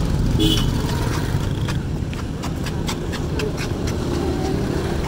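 Steady low rumble of street traffic, with a run of light ticks in the middle.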